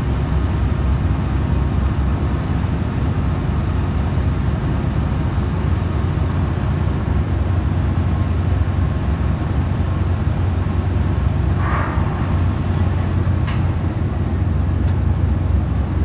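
Steady low drone of heavy machinery running on an offshore jack-up drilling rig's deck, with a faint hum under the rumble. A brief higher sound cuts through about twelve seconds in.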